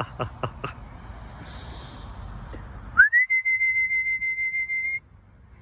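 A whistled note, rising sharply at the start and then held steady at one high pitch with a slight flutter for about two seconds. Four quick, sharp, falling sounds come first, within the first second.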